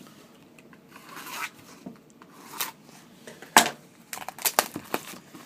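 Rustling and tearing of a sealed trading-card box's plastic wrap and cardboard as it is opened by hand, with a sharp click about three and a half seconds in and several smaller clicks after it.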